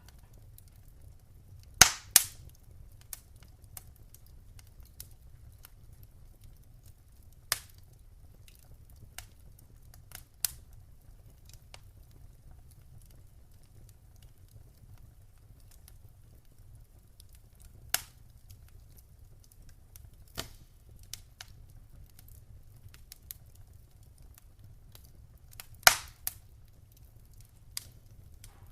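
Wood fire crackling with sparse, sharp pops a few seconds apart, the loudest a pair about two seconds in and another pair near the end, over a faint low rumble.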